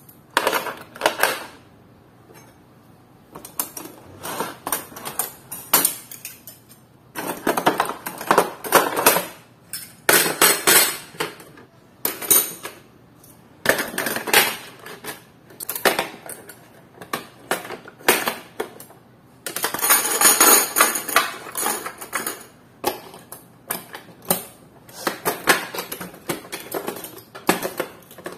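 Kitchen clatter: dishes and utensils clinking and knocking in irregular bursts, as they are handled and put away.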